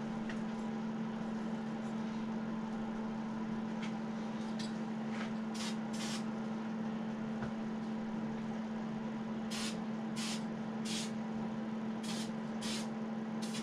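Aerosol spray-paint can hissing in short bursts as brown paint is sprayed on: about ten quick sprays in two clusters, starting about four seconds in. Under them runs a steady low hum.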